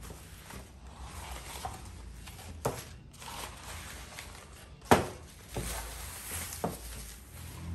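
Packaging being handled and opened, with a rustling of wrapping and a few sharp knocks, the loudest about five seconds in.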